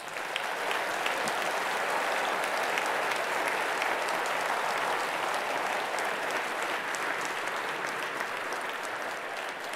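A large audience applauding: a long, dense round of clapping that builds within the first second and eases off slightly toward the end.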